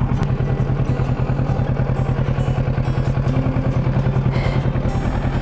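Kawasaki Ninja 650's parallel-twin engine idling steadily, with a fast, even pulse.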